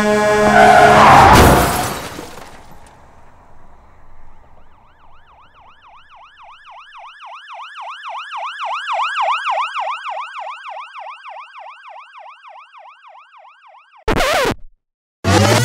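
A loud crash with a held tone in the first two seconds, then an emergency-vehicle siren in fast up-and-down yelp cycles that swells in and fades away. A brief loud burst comes near the end.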